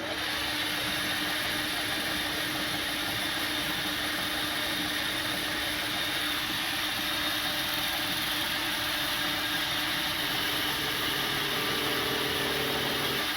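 Metal lathe running steadily with a constant hum and hiss while cutting a steel thrust washer.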